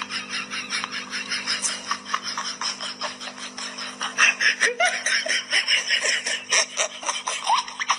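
People laughing: rapid, high-pitched giggling that goes on throughout, with a steady low hum underneath.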